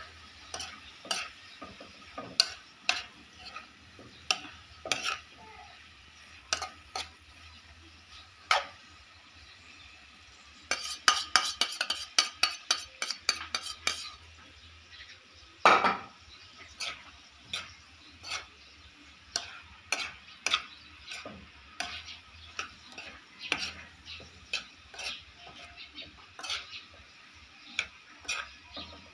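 Bitter melon slices being stir-fried in a wok: a metal utensil stirs and scrapes the pan with sharp clinks, over faint sizzling. The strokes come in a quick flurry about eleven to fourteen seconds in, and there is one loud scrape a little later.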